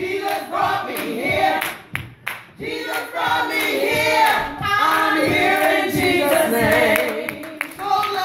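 A woman singing a gospel praise song, holding and wavering on long notes in the second half.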